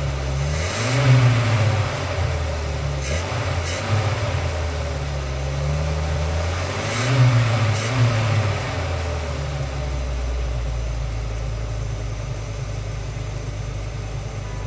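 Campervan engine running under load, revving up twice, about a second in and again about seven seconds in, then settling into a steadier drone.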